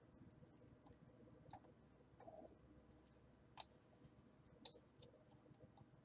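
Near silence: quiet room tone with a few faint, isolated computer mouse clicks.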